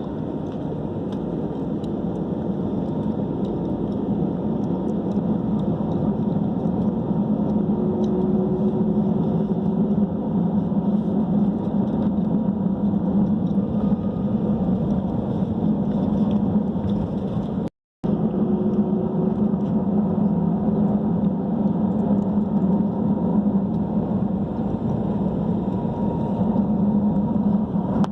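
Steady noise of a Boeing 737-800's CFM56 jet engines heard inside the cabin, a constant hum under a broad rush, rising slightly over the first ten seconds. The sound cuts out for a split second about two-thirds in.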